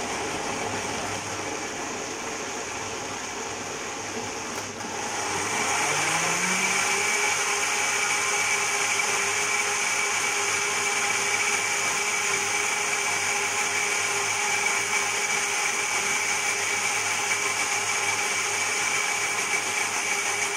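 Electric countertop blender running, blending a smoothie of fruit, milk and yogurt in its plastic jug. About five seconds in it gets louder, with a steady high whine, then runs on evenly.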